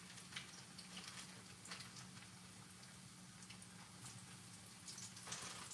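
Breadfruit slices frying in hot oil in a pan: a faint sizzle with scattered small crackles that grows louder near the end. A steady low hum runs underneath.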